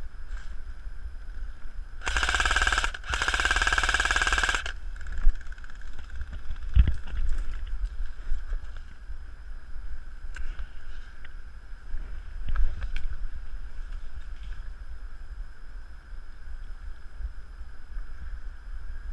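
Airsoft electric machine gun, a G&P Stoner 63, firing two full-auto bursts about two seconds in, the second one longer. After them come scattered faint clicks and knocks.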